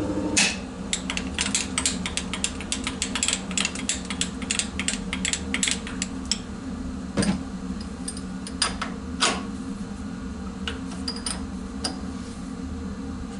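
Quick run of sharp metallic clicks and clinks as hands work a milling vice and the workpiece on a milling machine's table, thinning to scattered single clicks after about six seconds. A steady low hum runs underneath.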